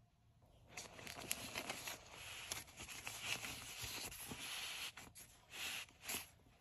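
Nylon drawstring storage bag rustling and crinkling as a hand handles it, with a few light clicks mixed in. It starts about a second in and comes in uneven spurts.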